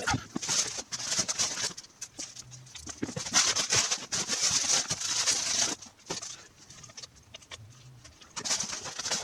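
Packaging being handled and pulled open: bursts of rustling and crinkling with small clicks, easing off for a couple of seconds before starting again near the end.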